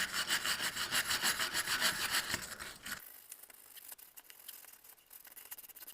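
Rapid back-and-forth scraping of a hand wire brush against metal on the wheel hub and lug studs, several strokes a second. It stops about three seconds in, leaving only a few faint clicks.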